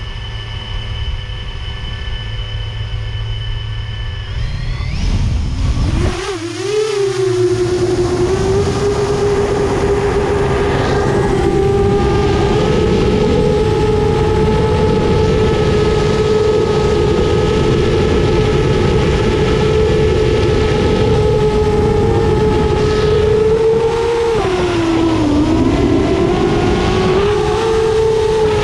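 7-inch FPV quadcopter's four EMAX ECO II 2807 1500Kv brushless motors spinning three-blade 7-inch props. They whine steadily at idle, then rise in pitch as the throttle comes up about four seconds in for takeoff, and hold a steady whine in flight. Near the end the pitch dips briefly and climbs back as the throttle is eased and reapplied.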